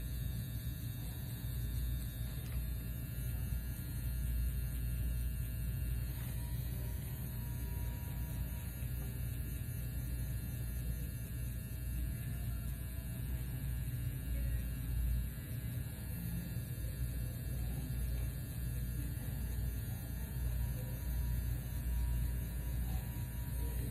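Handheld permanent-makeup pen (eyebrow tattoo machine) running against the brow, giving a steady low electric buzz.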